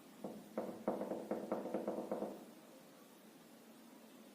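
A quick series of light taps, about five a second, lasting about two seconds, from fingers tapping a smartphone during Bluetooth pairing.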